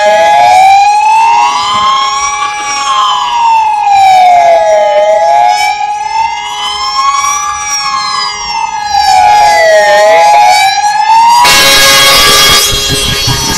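Fire siren wailing, its pitch rising and falling slowly about every five seconds, over a steady high tone that holds throughout. Near the end a loud rush of noise joins it as the fire engine pulls out.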